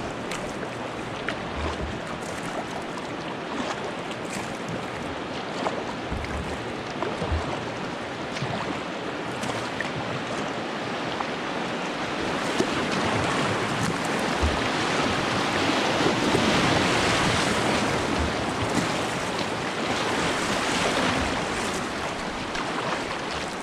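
Whitewater rushing through a river rapid, a steady roar of water that swells about halfway through and eases near the end.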